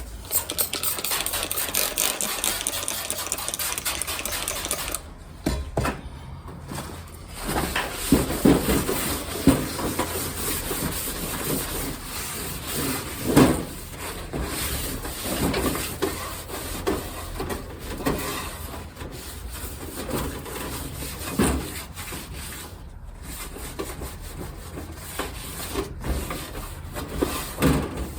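Rubbing and scrubbing on a kerosene heater's cover as it is wiped clean, in a run of repeated scraping strokes.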